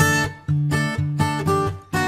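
Background music: acoustic guitar strumming chords, one loud stroke about every half second.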